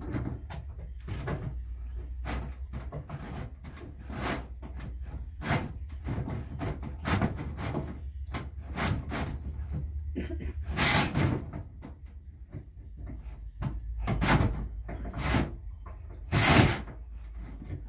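Cordless drill with a hole saw cutting up through a school bus's ceiling and roof, run in many short, irregular bursts with a thin high whine at times. The saw keeps grabbing and snapping, so the cut goes slowly.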